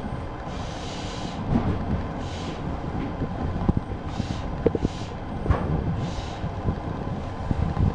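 Sleeper-train carriage under way, heard from inside the corridor: a steady low rumble of the running gear, with a few sharp knocks and rattles in the middle and several brief hissing swells.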